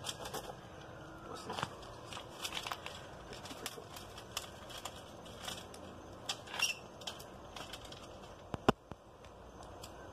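Small dry twigs and sticks snapping, crackling and rustling as they are handled and packed into a tin-can hobo stove, in scattered sharp clicks. Near the end comes a single much louder sharp click as a lighter is struck to light the stove.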